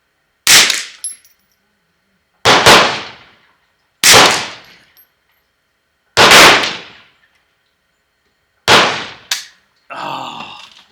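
Five single shots from a semi-automatic .22 LR Ruger 10/22-action target rifle firing Eley bench rest ammunition, spaced about one and a half to two and a half seconds apart. Each is a sharp crack with a short ringing tail. A shorter, fainter crack follows just after the first and the last shots.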